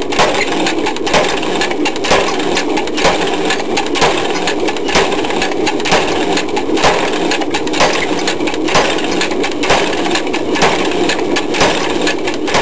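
Mechanical forging hammer striking a steel blade at a steady pace of about one blow a second, over the continuous running noise of the machine.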